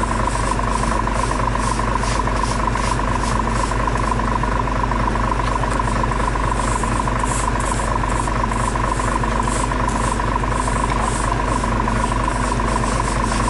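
Emergency vehicle engines idling with a steady hum, while stiff push brooms scrape over the asphalt about twice a second, sweeping crash debris off the road.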